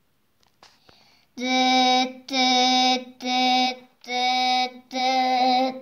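A high, child-like voice singing a run of about five held notes on one pitch, starting about a second and a half in, with short breaks between the notes.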